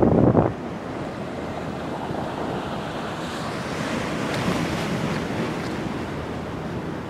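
Sea surf washing and breaking around the concrete blocks of a harbour breakwater, with wind buffeting the microphone. The wash swells into a brighter hiss about three to five seconds in, then eases.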